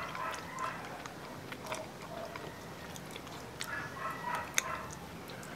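Chewing and crunching on crispy deep-fried duck, with scattered faint crackles and clicks.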